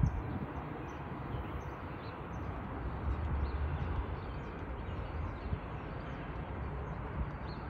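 Steady low outdoor rumble and hiss with faint bird chirps, and a single brief thump at the very start.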